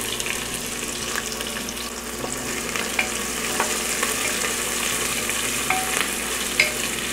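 Chopped onion sizzling in hot oil in a pressure cooker while a wooden spatula stirs it. There is a steady frying hiss, with a few sharp knocks of the spatula against the pan.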